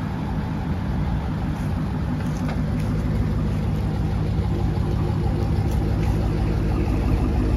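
2018 Dodge Challenger SRT Hellcat's supercharged 6.2-litre HEMI V8 idling steadily, growing slightly louder over the few seconds.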